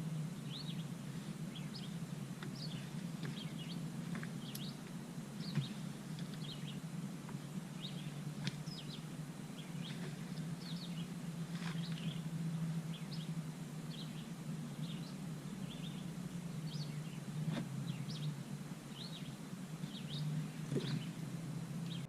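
Small birds chirping many short calls over a steady low background rumble, with a few knocks.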